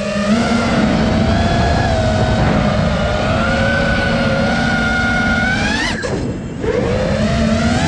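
Brushless motors of a 5-inch FPV freestyle quadcopter whining, their pitch wandering up and down with the throttle. About six seconds in the throttle is chopped for about half a second, then the motors spool back up with a rising whine.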